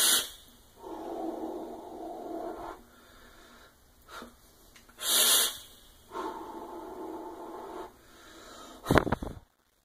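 A person vaping on a series-wired mechanical box mod with a dual-coil 0.40-ohm atomizer: two long draws of about two seconds each through the atomizer, and sharp, hissing breaths at the start and about five seconds in as the vapour is blown out.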